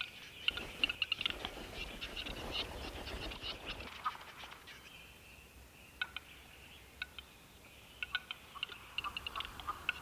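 Male western capercaillie's display song: series of dry clicks that quicken into rapid runs, with a short hissing phrase in the middle, then a new click series starting about six seconds in and speeding up toward the end.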